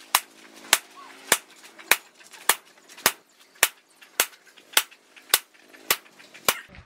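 Hammer blows struck on a wedge-shaped top tool held against a red-hot machete blank on an anvil: twelve sharp metal strikes at an even pace, a little under two a second, as the blade is forged.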